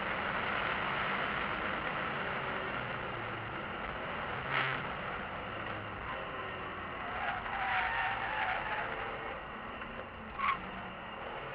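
BMW E46 M3's straight-six engine and road noise at speed, heard from inside the cabin. Two short knocks come through, about halfway through and again near the end.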